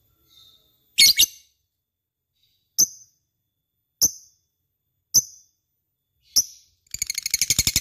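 Lovebird calling with sharp, high-pitched chirps: a double call about a second in, then single calls about every second, breaking into a fast rattling chatter of about ten pulses a second near the end.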